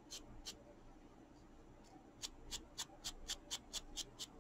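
Small scissors snipping into a bundle of cotton fabric scraps: a couple of snips near the start, then from about halfway through a quick run of short snips, about five a second.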